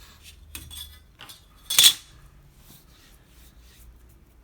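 A ruler being handled and put down on the work surface: a few light clicks and rustles, and one sharp clack about two seconds in.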